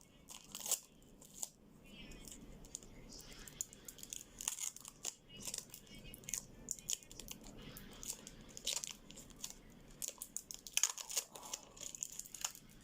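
Product packaging being torn open and handled: irregular crinkling, rustling and tearing in short scattered bursts throughout.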